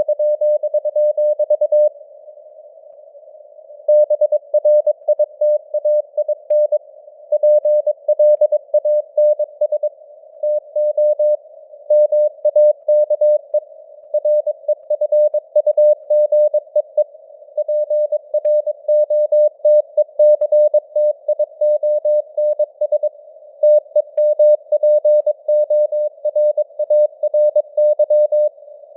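Morse code (CW) sent at 22 words per minute as a single steady beeping tone keyed in dots and dashes, with short pauses between words. Under it runs a faint narrow band of simulated radio hiss, like a receiver's CW filter.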